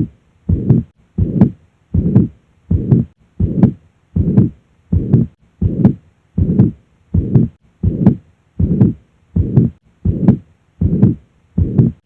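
Heart sounds heard at the cardiac apex with the murmur of mitral regurgitation: each beat is a pair of heart sounds joined by a murmur. The rhythm is regular, at about 80 beats a minute.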